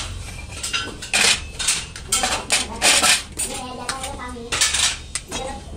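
Irregular metal clanking and scraping as metal tools or parts knock against metal, a handful of sharp strikes, some ringing briefly, over a steady low rumble.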